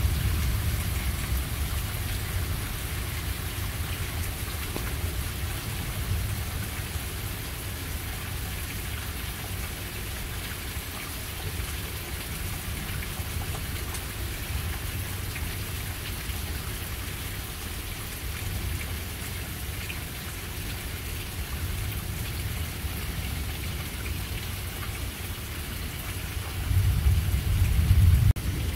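Steady rain falling during a thunderstorm, with a low rumble of thunder that dies away over the first few seconds and a louder rumble of thunder near the end.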